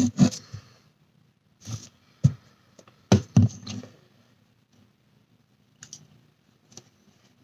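A makeup sponge dabbing liquid foundation onto the face: a few irregular soft clicks and taps, several clustered in the first four seconds and fainter ones later.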